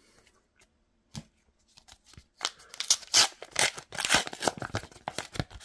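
A trading card pack wrapper torn open and crinkled as it is pulled apart, in a dense run of crackling from about halfway through, after a single click.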